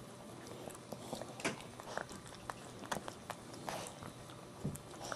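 Maltese mother dog licking her newborn puppy clean: irregular wet licks and small mouth clicks and smacks.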